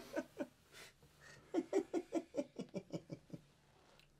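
A man laughing: a few short laughs at first, then, about a second and a half in, a quick run of about a dozen ha-ha pulses that fade off.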